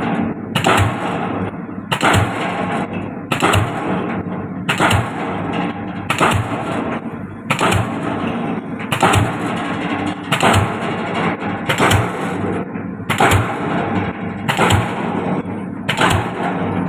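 DD-25 diesel pile hammer driving a concrete pile: a loud, sharp blow about every second and a half, about twelve in a row, each with a short ringing tail, over a steady machine hum.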